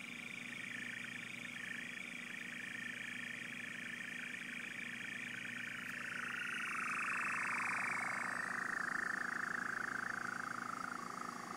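Signal from a Marti remote pickup radio link: a buzzing, warbling electronic tone that sounds like an alien spaceship. About halfway through it slides down in pitch, and it stops near the end.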